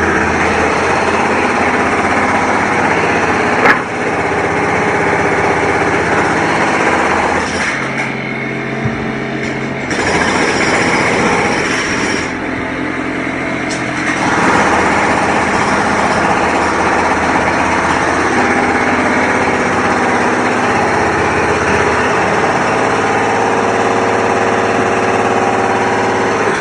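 Construction machinery running steadily, with engine drone and mechanical clatter and one sharp knock about four seconds in. The mix changes character a couple of times between about eight and fourteen seconds in.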